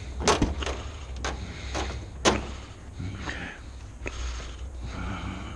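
Footsteps on ice: a handful of irregular sharp knocks and scrapes, the loudest about a third of a second and two seconds in, over a steady low rumble.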